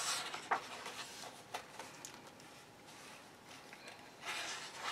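A paper page of a softcover colouring book being turned, with a short papery swish at the start and a few light taps of paper settling. Near the end there is a longer soft rustle of paper as the page is handled.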